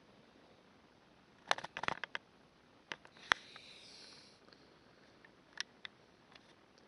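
Scattered sharp clicks and taps over a faint background hiss. There is a quick cluster about a second and a half in, a single loud click just after three seconds, and two more near six seconds.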